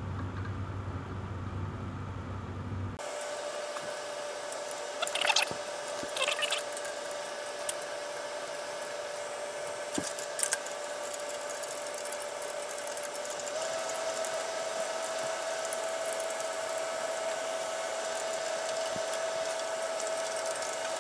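A low hum, then a steady whirring hiss with a single humming tone, like a small blower or fan motor running, which starts abruptly about three seconds in and steps slightly higher in pitch about two-thirds of the way through. A few light metallic clicks come between about five and eleven seconds in.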